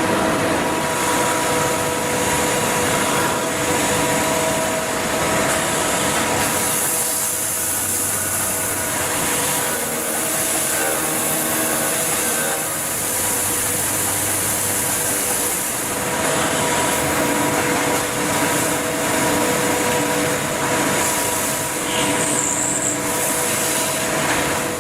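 Lathe running with a cutting tool working the spinning workpiece: a steady cutting hiss over a motor whine of a few steady tones. It cuts off suddenly at the end.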